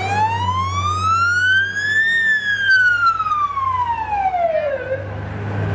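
An emergency vehicle's siren gives one slow wail, rising for about two seconds and then falling away over the next three. A low engine drone runs beneath it.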